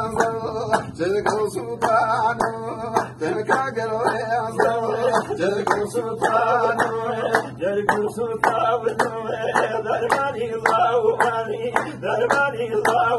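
A man singing a Hawrami (Gorani) Kurdish folk song, with several men clapping hands together on a steady beat.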